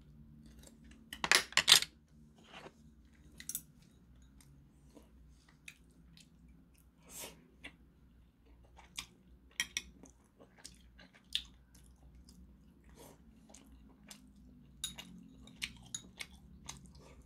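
Close mouth sounds of a person chewing a mouthful of rice and grilled hairtail, with scattered small clicks and taps of a metal spoon against teeth and a rice bowl. The loudest is a brief cluster of sharp clicks about a second in, over a faint steady low hum.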